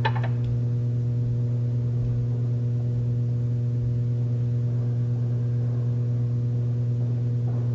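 A steady low hum with a few fainter overtones above it, holding one pitch without change.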